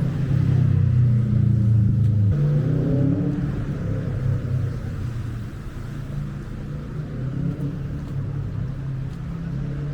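City street traffic: a vehicle's engine running close by with a strong low hum. The hum drops about two seconds in as a rising engine note follows, then settles to a steadier, quieter traffic hum.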